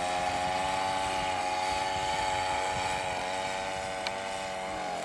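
Petrol two-stroke grass-cutter engine (a 42.7cc Krisbow brush-cutter engine) powering a radio-controlled plane in flight, running at a steady high drone that dips slightly in pitch near the end as the throttle eases.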